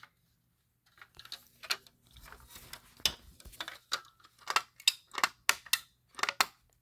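A string of irregular sharp clicks and light knocks from a Fire-Lite BG-12 fire alarm pull station being handled and reset.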